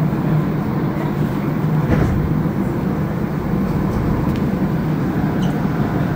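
Montreal Metro AZUR train running on rubber tyres: a steady, even rumble with a constant low hum.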